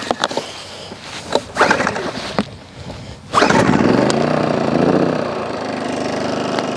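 Small portable inverter generator being pull-started: a few short rasps of the starter cord, then the engine catches a little over three seconds in, shifts in pitch briefly and settles into a steady run.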